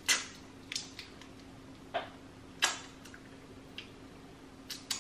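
Wet mouth sounds of a lollipop being licked and sucked: a string of short smacks and clicks, about one a second, the loudest right at the start and just past halfway.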